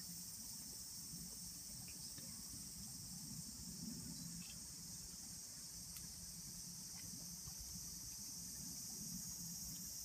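Chorus of cicadas, a steady high-pitched buzz that goes on without a break.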